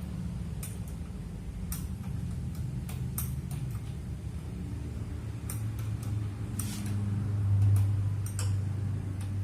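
Steady low hum with scattered light clicks and taps; the hum swells from about six seconds in.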